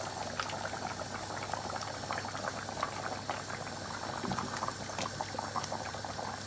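Tomato and potato curry boiling in a pot, a dense, even crackle of popping bubbles around the fish pieces just added to it.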